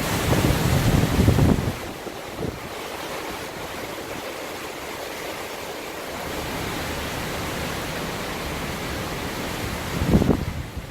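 Hurricane wind gusting, a strong gust buffeting the microphone with a low rumble for the first second and a half and again near the end, over a steady rush of wind between.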